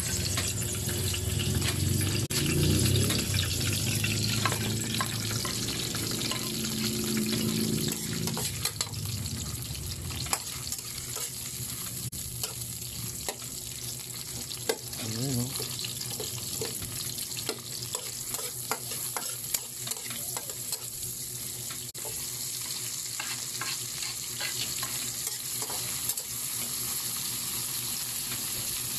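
Mole crickets frying in hot oil in a metal wok: a steady sizzle with many small pops and the clicks and scrapes of a spoon stirring them against the pan.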